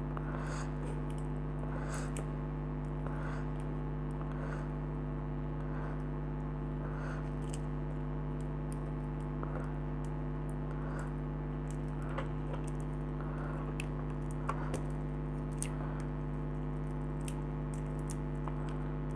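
A steady low electrical hum with faint small clicks and crunches of hand work: a blown fuse being broken off the coil of a compressor nebulizer's motor.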